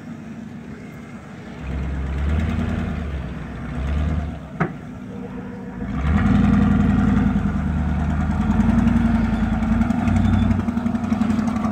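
Ford pickup truck engine working off-road: a low rumble that swells twice as the throttle is blipped, with one sharp click just before the middle, then a louder, steady run from a little past halfway as the truck pulls along the gully.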